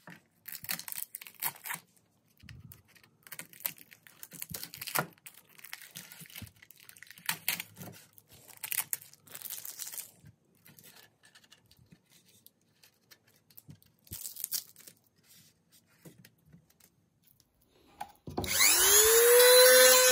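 Irregular scraping, rubbing and clicking of hand work on a part. Near the end a small power tool starts, its whine rising quickly in pitch and then running steadily.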